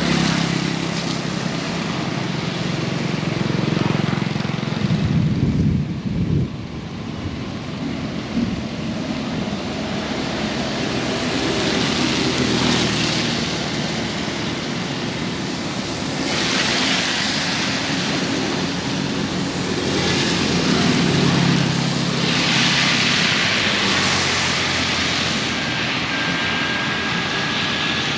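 Heavy rain with strong wind gusting over the microphone, a steady hiss of downpour that swells and eases in waves, with deep rumbling gusts now and then.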